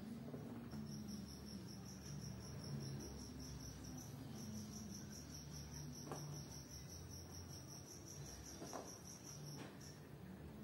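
Insect chirping: a high, evenly pulsed trill of about five chirps a second, with a short break about four seconds in, over a low steady hum.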